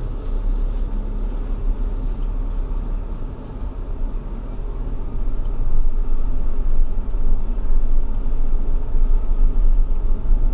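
Vehicle on the move: a steady low engine and road rumble, dipping briefly and then growing louder from about six seconds in.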